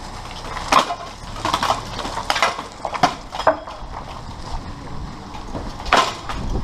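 Steel plate armour clanking and being struck in armoured sparring: a string of sharp metallic clanks, several in the first three and a half seconds and a loud one about six seconds in.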